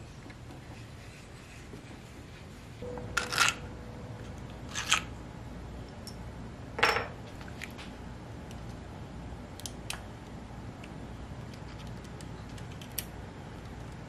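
Plastic air-filter housing and small parts of a Husqvarna 323L trimmer's carburetor clicking and rattling as they are worked loose by hand. A handful of sharp clicks, the loudest about halfway through, then a few faint ticks.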